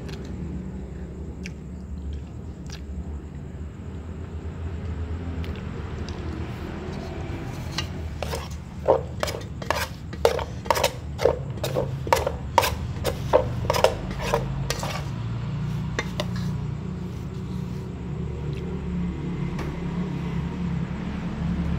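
Cats eating rice from plastic bowls: a run of about fifteen sharp clicks and clinks, roughly two a second, in the middle, over a steady low hum.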